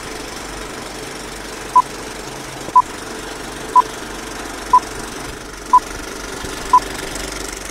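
Film-leader countdown sound effect: a film projector's steady whirring clatter, with a short high beep about once a second, six beeps in all, ticking off the countdown numbers.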